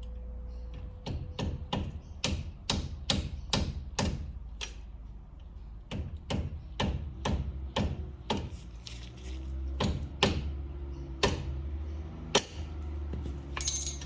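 A mallet tapping a drill bit used as a punch to drive the pad-retaining pin out of a 4-piston Brembo brake caliper. About twenty sharp metallic taps come two or three a second, in two runs with a short pause in the middle. A brief metallic jingle sounds near the end.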